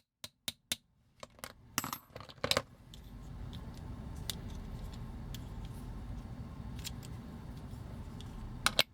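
Light metallic clicks and taps of a steel pin punch working against a toy's die-cast metal and plastic parts: a quick run of taps in the first couple of seconds and two more near the end, over a low steady hum.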